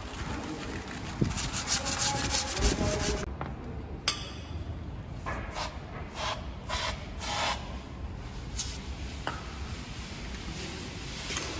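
Abrasive pad scrubbing a car's bare wheel hub with quick rubbing strokes, cleaning it before a wheel spacer goes on. After a break, several short hissing spray bursts from an aerosol can of cleaner aimed at the hub.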